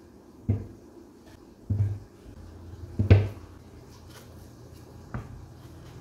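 Four dull knocks as plantains and a knife are handled on a plate on a kitchen counter while the plantains are peeled. The loudest knock comes about three seconds in.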